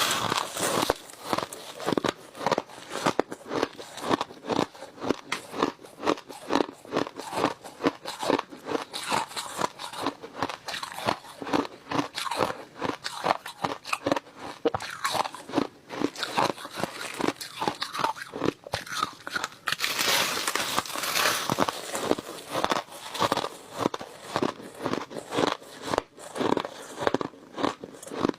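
Close-miked chewing of crushed ice: a rapid, unbroken run of crisp crunches, several a second, thickening into a denser crackle about two-thirds of the way through.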